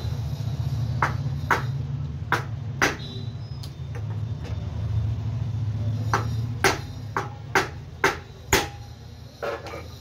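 Sharp metallic clicks and knocks, mostly in pairs about half a second apart, some ringing briefly, from tools and metal parts being handled while a 14-inch cut-off machine is put back together. A steady low hum runs underneath.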